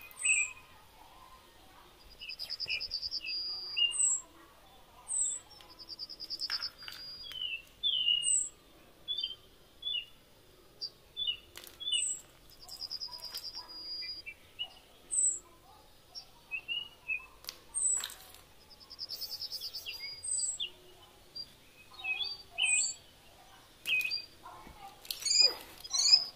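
Birds chirping: a short high falling chirp repeated about once a second, several buzzy trills of about a second each, and other quick chirps, with a few sharp clicks among them.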